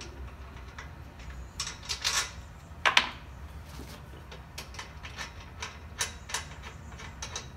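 Scattered metal clicks and clinks from hands and tools working on an exhaust pipe and muffler mounted on an engine run stand, with a sharper knock about three seconds in.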